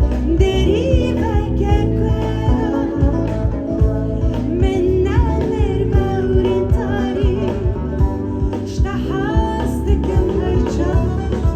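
Live folk music from a band: a wavering, gliding melody line over a steady bass and regular drum beats.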